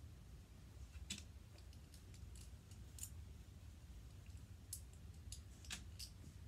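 Small plastic LEGO pieces being handled and pressed together, giving faint, scattered sharp clicks and taps.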